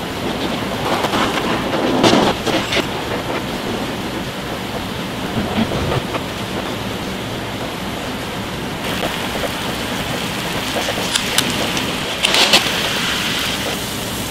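Beaten egg sizzling in a hot oiled rectangular tamagoyaki pan over a gas burner, a steady crackling hiss. A few sharp clicks stand out, and near the end the sizzling surges louder as fresh egg is poured into the pan.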